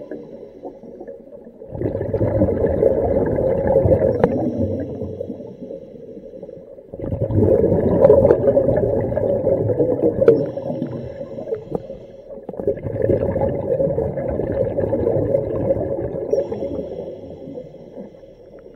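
Underwater breathing on a hookah regulator: a diver's exhaled bubbles rumble and gurgle in three long exhalations about five seconds apart, with quieter gaps between.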